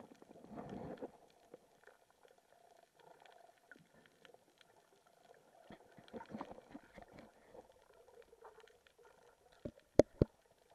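Underwater sound picked up through a submerged camera housing: faint water movement with a low rumbling surge early on and scattered small clicks, then a few sharp knocks close together near the end.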